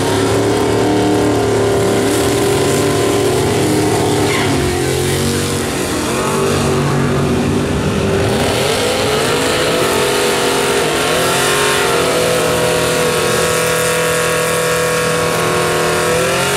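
Drag-racing engines at high revs: a race car's engine running hard, then a drag pickup truck's engine revving up and holding high revs through a burnout that spins the rear tyres in thick smoke.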